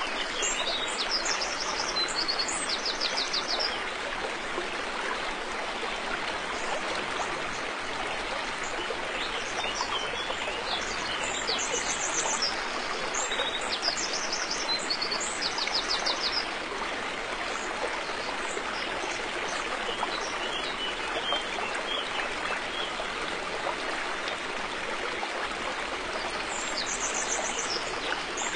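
River water flowing steadily, a continuous rush. A small bird calls over it in short series of rapid high notes: in the first few seconds, again midway through and once more near the end.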